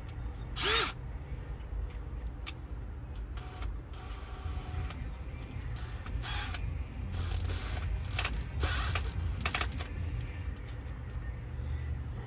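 Scattered clicks and light metal rattles of drill bits being handled and sorted, over a steady low rumble, with one louder short scrape about a second in.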